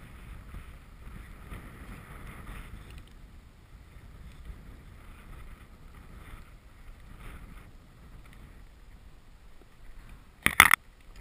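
Wind buffeting the microphone in a steady low rumble, with a brief, loud double burst of noise near the end.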